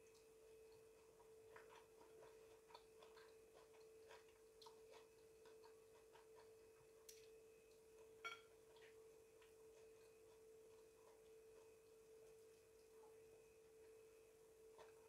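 Near silence: a faint steady hum, with scattered faint clicks and small mouth and finger noises of someone eating fish by hand. One click is a little louder about eight seconds in.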